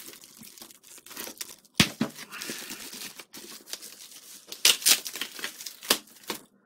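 Thin foam packaging wrap crinkling and tearing as it is pulled off by hand, in irregular crackles with a few sharp, louder rips about two seconds in and around five and six seconds in.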